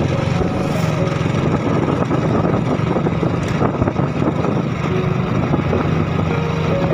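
Motorcycle engine running steadily at cruising speed, heard from the rider's seat, with road and wind noise.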